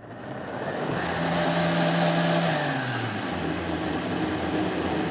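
Countertop blender motor running, puréeing a jug of thick chicken and oat soup until smooth. The motor's pitch drops about halfway through as it works the mixture.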